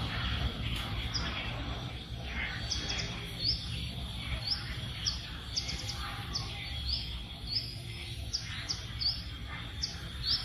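A small bird chirping over and over in short, high, upward-flicking notes, about two a second, over a steady low rumble.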